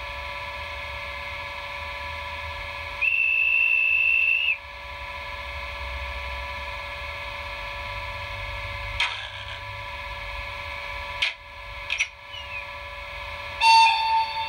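Sound decoder of an H0 model electric locomotive playing through its small speaker: a steady electric hum with several held tones, a high whistle held for about a second and a half a few seconds in, a few sharp clicks, and a short horn blast near the end.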